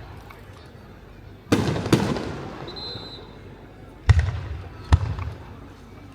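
Aerial firework shells bursting: four loud bangs in two pairs, about a second and a half and two seconds in, then about four and five seconds in. Each bang trails off in a rolling echo.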